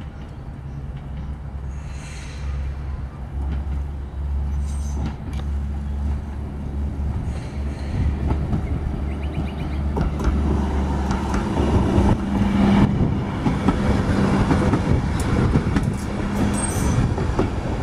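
A Melbourne B2-class articulated tram approaching and passing close by. Its wheels rumble on the rails, growing louder throughout, with a steady low motor hum in the second half and a few short high wheel squeaks near the end.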